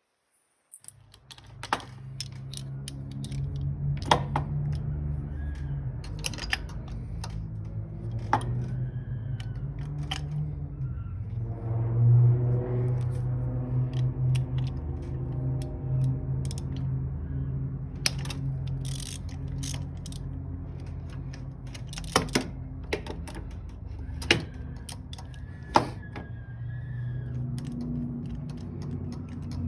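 Hand tools clicking and knocking while a spark plug is worked out of the engine, over a steady low hum that starts about a second in.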